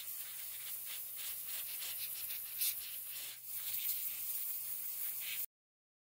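Brisk scrubbing of grime off the parts of a portable CD player, a steady scratchy rasp of quick strokes on a hard surface that stops abruptly about five and a half seconds in.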